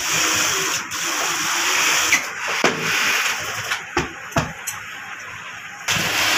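Industrial sewing machine running in stitching bursts as glove fabric is fed through it. It drops off in the middle, where a few sharp clicks sound, then runs again near the end.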